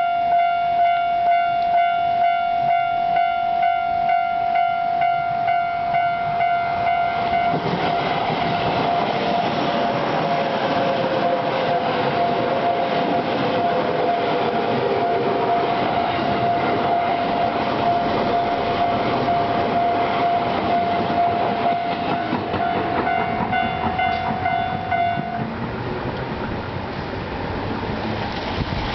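Japanese railway level-crossing alarm ringing its steady, pulsing electronic ding-ding; one of its two alarm sounders is pitched lower than the other. About seven seconds in, a Tobu Tojo Line train passes through the crossing, its rumble and wheel rattle covering the alarm, with a falling whine partway through. The alarm stops a few seconds before the end, once the train has cleared.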